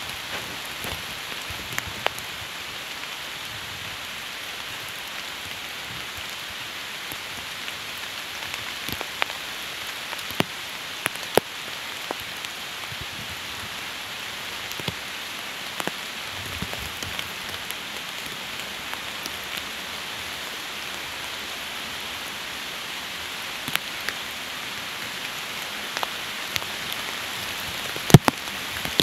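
Steady rain falling, an even hiss with scattered sharp ticks of single drops hitting close by, the loudest two near the end.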